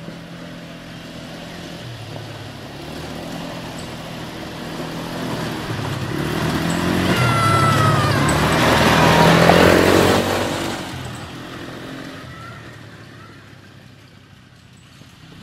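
Small ATV (quad bike) engine running as it comes along a dirt trail. It grows louder, passes close about ten seconds in, then fades as it drives away.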